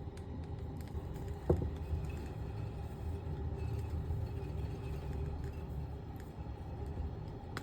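Steady low background rumble, with one faint click about one and a half seconds in.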